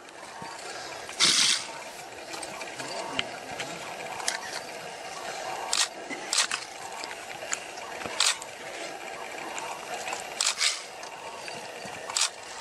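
A leopard and a porcupine scuffling at close quarters: about eight short rustling, rattling bursts of quills and paws on the ground, the loudest about a second in, over a steady hiss.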